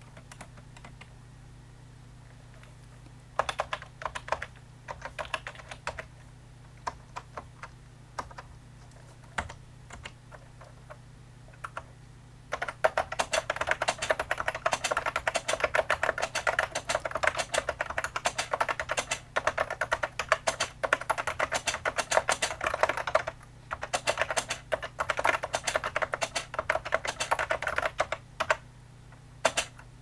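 Typing on an IBM ANPOS point-of-sale keyboard with rubber-sleeve key mechanisms. Scattered keystrokes come first, then fast continuous typing from about twelve seconds in, broken by a few short pauses. A steady low hum runs underneath.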